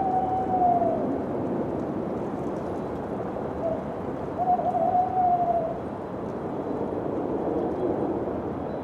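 Steady wind rushing, with a wolf howling twice: a short howl at the start and a longer, held howl about four seconds in.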